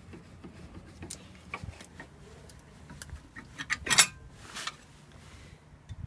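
Metal clinks and scrapes of brake pads and their retaining hardware being worked out of a VW T3 (Vanagon) brake caliper. Scattered light clicks, then a quick cluster of sharp clinks about four seconds in, the loudest part, and a short scrape just after.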